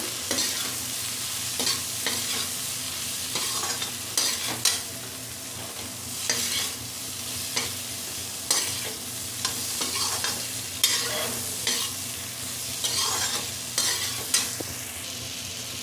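Vegetables and spices frying in a metal kadhai while a metal spatula stirs them: a steady sizzle broken by irregular scrapes and clacks of the spatula against the pan, as the masala and salt are roasted into the vegetables.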